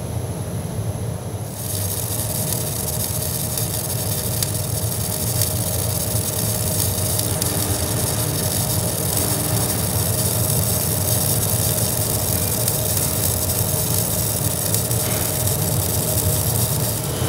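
Automatic MIG welding arc welding an end piece onto a large superheater flue tube: a steady crackling hiss that starts about a second and a half in, over a constant low machine hum.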